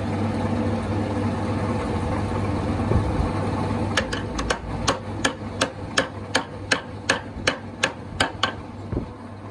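A workshop machine hums steadily, then about four seconds in a run of quick hammer blows on metal begins, about three sharp strikes a second.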